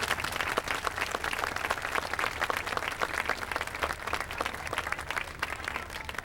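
Crowd applauding: dense clapping that thins out near the end.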